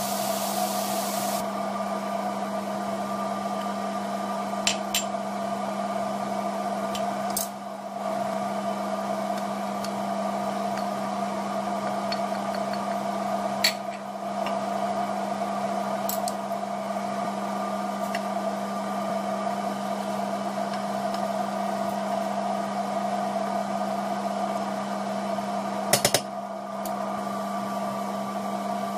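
Steady whirring hum of a kitchen fan running. A few sharp clicks and knocks of a wooden spoon against a steel pot cut through it, the loudest near the end.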